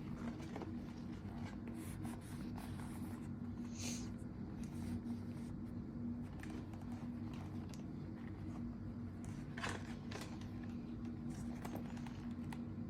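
Handling noises of a leather baseball glove: light scrapes and scattered small clicks, with a couple of brief rustles, over a steady low hum.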